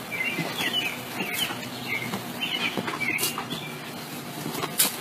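Garden hose spraying water with a steady hiss, over about ten short high chirps and a few sharp clicks.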